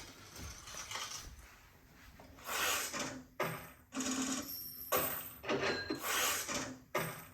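Music played back from a freshly recorded cassette on a Sony TC-FX707R cassette deck, coming in about two and a half seconds in after a quiet stretch, with a regular pulse of about one beat a second.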